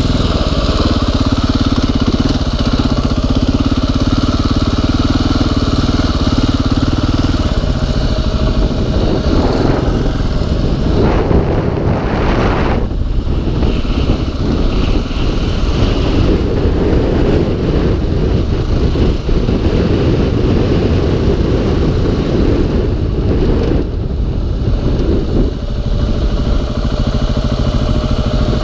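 2015 KTM 690 Enduro R's single-cylinder engine running as the bike is ridden over a dirt track, its note changing with the throttle, most noticeably around ten to thirteen seconds in and again near 24 seconds. Wind noise on the camera microphone runs under it.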